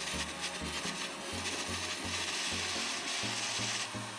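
Handheld butane torch flame hissing steadily against a steel blade, louder in the middle and dropping off just before the end. Background music with a low pulsing bass line runs underneath.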